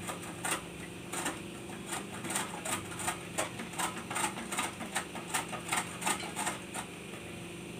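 Peeled bottle gourd grated on a stainless-steel box grater: a rasping stroke about three times a second, stopping near the end.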